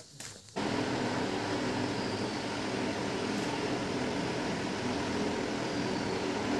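Steady rushing noise with a faint low hum underneath. It starts suddenly about half a second in and then holds even.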